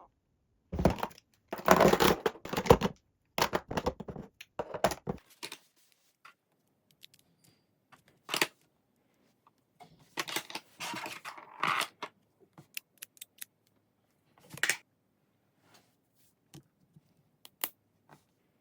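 Household items being handled at close range: bursts of rustling and clatter through the first five seconds, more around the middle, then scattered light clicks and taps.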